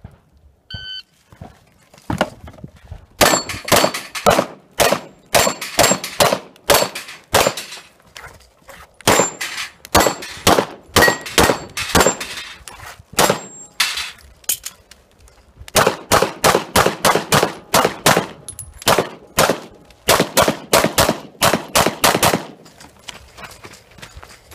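A shot timer beeps once, then a competitor's pistol fires fast strings of shots in three bursts with short pauses between them, steel targets ringing after many of the hits.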